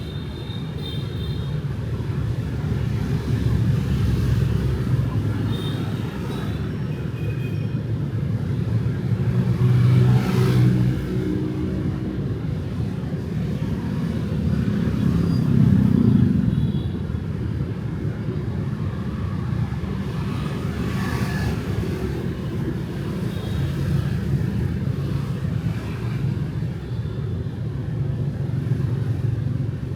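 Street traffic of motorbikes and cars, a steady rumble with single vehicles passing close about ten and sixteen seconds in.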